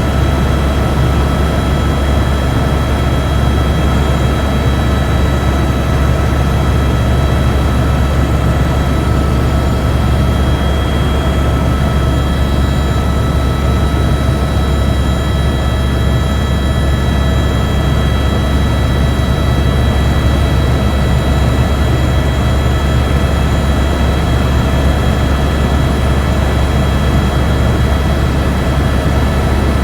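Helicopter in flight, heard from inside the cabin: a loud, steady low drone with a constant high-pitched whine over it.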